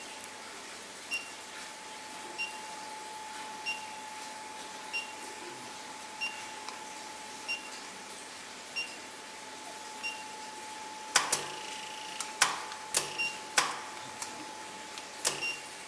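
Induction heating machine running, with a steady mid-pitched hum and a short beep about every 1.3 seconds. About two-thirds of the way in comes a run of sharp knocks, the loudest sounds here, with one more near the end.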